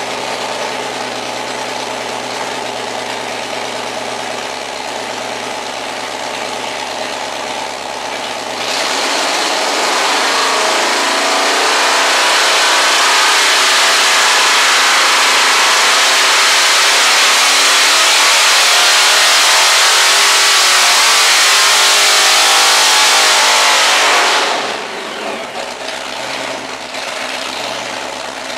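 Supercharged 572-cubic-inch all-aluminum Hemi V8, with twin carburetors, running steadily at low revs. About nine seconds in it is opened up sharply and climbs to high revs, holds there loud for about fifteen seconds, then drops back to the steady low-rev running near the end.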